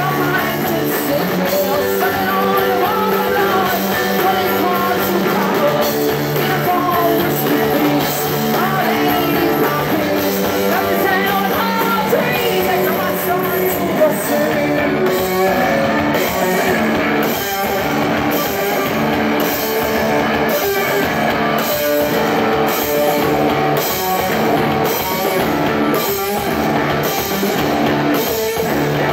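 Live punk rock trio playing: distorted electric guitar, bass and a drum kit, picked up by a phone microphone in the crowd. In the second half the drums hit a steady beat about once a second.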